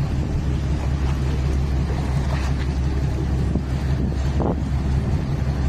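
Boat engine running with a steady low drone.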